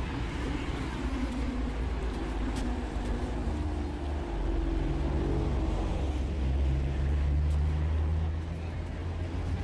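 A heavy engine running with a deep rumble. Its pitch rises over the first few seconds, and it grows louder in the second half before easing slightly near the end.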